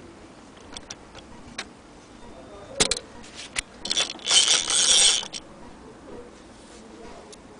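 Light clicks, then about a second of dense metallic rattling from an antique Vesta hand-crank sewing machine being handled.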